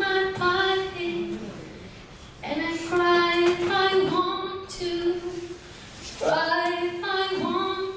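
A woman's voice singing without accompaniment in three phrases of long, held notes, with short pauses between them.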